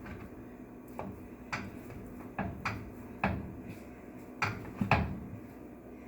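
A utensil knocking and scraping against a 10-inch cast iron skillet while raw ground beef is chopped up in the pan: about seven irregular knocks.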